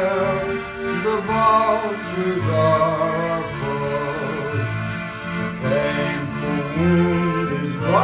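Roland digital accordion playing a slow tune with held chords and bass notes that change every couple of seconds, with a man singing along with a wavering vibrato.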